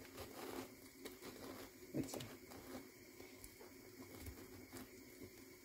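Faint crunching and scraping of a handheld pineapple corer-slicer being twisted down into a whole pineapple, with scattered soft clicks, one a little louder about two seconds in.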